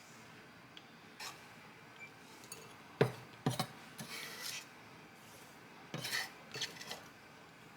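Objects being handled: a few scattered knocks and scraping rubs, the sharpest knock about three seconds in and another cluster about six seconds in.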